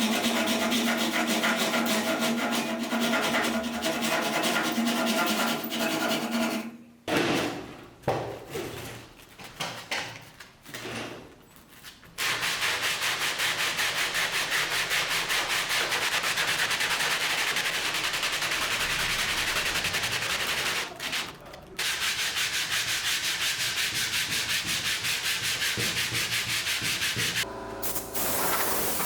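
Sanding, heard as a rub repeated in rapid, even strokes through the second half. It follows a steady humming tone in the first several seconds and a few seconds of irregular scraping and knocks.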